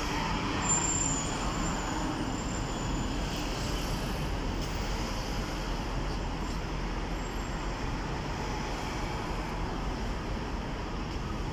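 Steady road traffic noise: cars driving past on a multi-lane city street.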